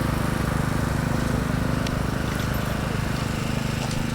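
An engine running steadily with a fast, even low chugging, unchanging in level.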